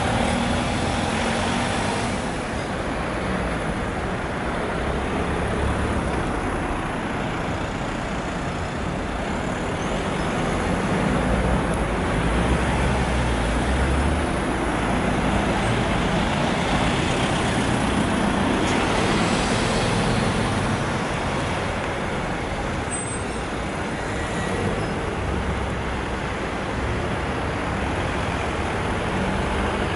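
Street traffic with buses and cars driving past: steady engine and tyre noise that swells several times as vehicles pass close by.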